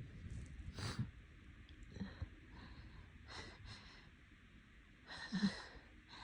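A person with a stuffy, tickly nose sniffling and breathing: a few short sniffs, then a louder breathy sigh with a touch of voice about five seconds in.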